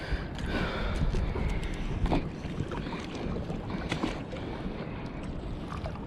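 Wind buffeting the microphone in a steady low rumble, with a few faint scattered clicks of handling.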